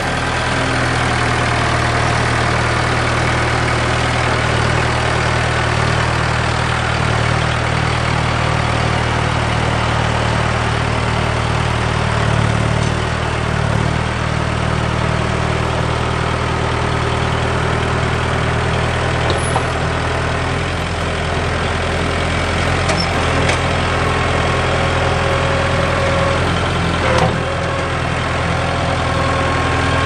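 Four-wheel-drive Mahindra tractor's diesel engine running steadily while its front loader pushes into a dirt pile, with the engine note shifting slightly about two-thirds of the way through and a single knock near the end.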